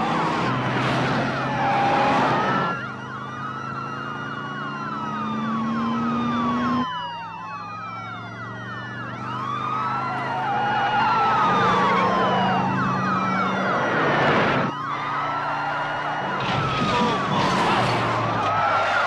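Many police car sirens wailing at once, their rising and falling tones overlapping, over the running engines of the cars.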